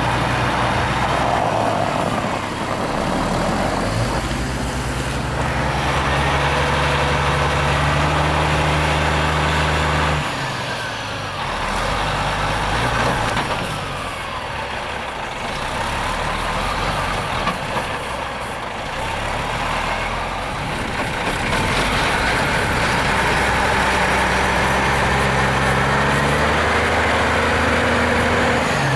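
Semi tractor-trailer's diesel engine pulling hard while its drive tyres spin on snow and ice. It comes in repeated bouts, the engine note held steady for several seconds and then dropping away as the driver lets off, with the whir of the spinning wheels on top.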